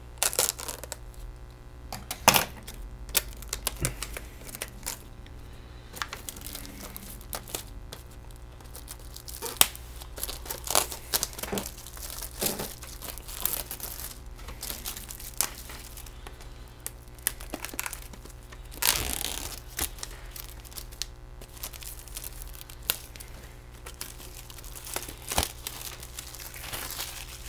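Plastic wrapping crinkling and tearing as it is pulled off a sealed VHS clamshell case, with scattered sharp clicks from handling the plastic case.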